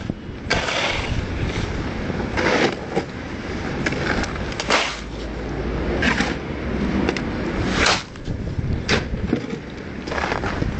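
Manual work on concrete driveway kerbstones: irregular scrapes and knocks, roughly one every second or two, over a continuous rough background noise.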